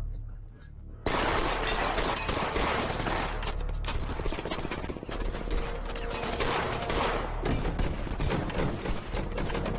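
Sustained gunfire: many rapid shots overlapping, starting suddenly about a second in.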